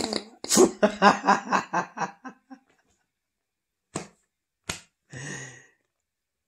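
A man laughing: a loud breathy burst, then a run of about ten quick "ha" pulses, about four a second, that fade out. A little later come two sharp clicks and a short soft breathy sound.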